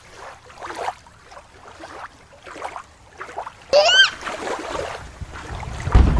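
Water splashing and trickling in a toy water play set as a toy shark goes down its water slide. About four seconds in there is a short high rising squeal, and near the end a low thump.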